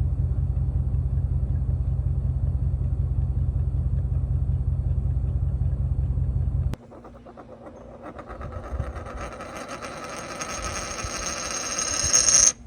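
A deep, steady engine rumble for about seven seconds that cuts off suddenly, followed by a rising engine-like whine that grows louder and brighter before stopping abruptly.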